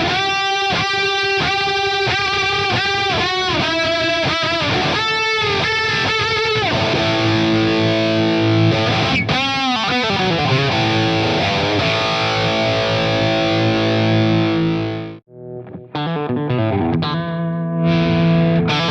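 Background music led by a distorted electric guitar playing sustained, bending notes, with a short break about fifteen seconds in.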